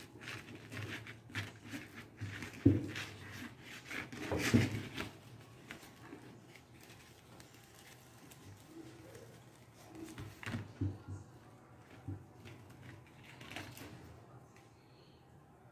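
Beads clicking and rattling as a beaded cap is handled and fitted over a cap form, with louder knocks about three and four and a half seconds in and a few more clicks around ten seconds in.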